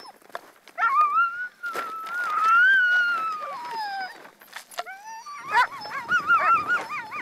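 Greenland sled dogs whining at feeding time: one long high whine of about three seconds that rises and then falls, then a quicker wavering whine near the end.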